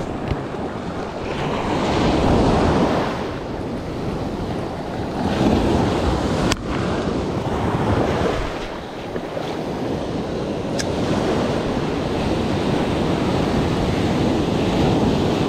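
Ocean surf breaking and washing up the beach, swelling and easing every few seconds, with wind rumbling on the microphone.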